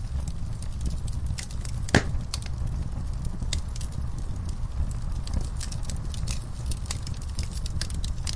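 Wood fire crackling in a fireplace, with many small pops and snaps over a steady low rumble of burning logs; one sharper, louder pop about two seconds in.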